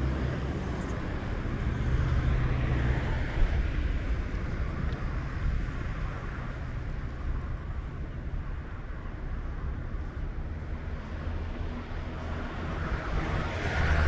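Road traffic: cars passing over a steady low rumble. One pass swells about two to three seconds in, and another builds near the end.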